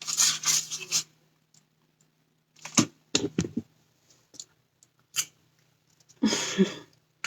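Handling the cooked chicken and its dish: a few scattered, separate clicks and light knocks, with short rustling stretches at the start and near the end.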